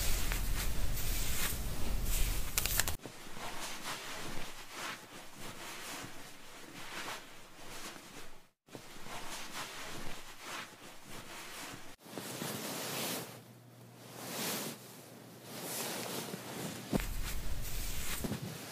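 Microfiber towel rubbing and squeezing wet hair: soft, uneven rustling and scrubbing strokes.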